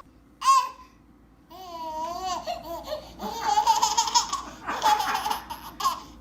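Baby laughing and squealing: a short squeal about half a second in, then a wavering babbling cry and bursts of giggly laughter.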